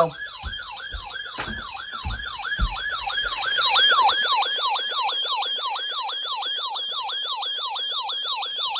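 Electronic siren-like alert tone: a high pitch that drops sharply and snaps back up, about three times a second, getting louder after about three and a half seconds. It goes off as new emergency alerts come in. A few soft low knocks sound in the first four seconds.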